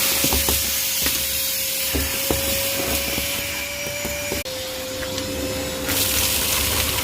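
Ryobi vacuum cleaner running, with a steady motor whine over the hiss of rushing air and a few faint clicks. The whine creeps up slightly, then drops a little and the hiss changes about four and a half seconds in, returning about a second and a half later.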